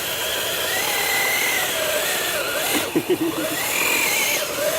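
Upgraded WPL B36 RC truck's electric motor and full-metal gearbox whining, the pitch rising and falling with the throttle as it drives, with a short dip about three seconds in.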